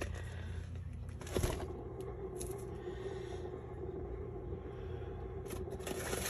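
A paint spinner turning a freshly poured acrylic coaster, the spinning stage of a fluid-art pour. There is a knock about a second and a half in, then a steady, even hum.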